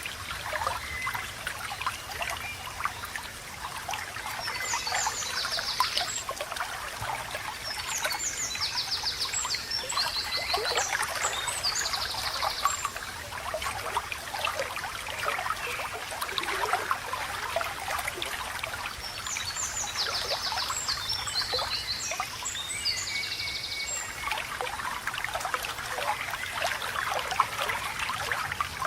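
Small stream babbling and trickling steadily. Over it a bird sings short, rapid trilled phrases in three spells.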